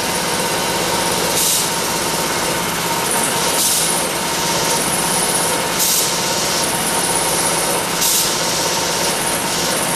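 Wilcom AutoTuft TM3040 tufting machine with a Mk3 pneumatic head running as it tufts a rug. It makes a steady mechanical noise with a thin whine and a short hiss about every two seconds.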